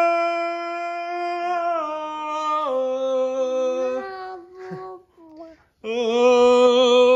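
A voice singing long drawn-out notes that step down in pitch. After a short break about four seconds in, another loud held note starts near the end.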